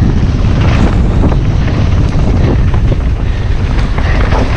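Wind buffeting the mountain bike's on-board camera microphone as a loud, steady low rumble, over tyre noise on a dirt trail, with a few short rattles from bumps.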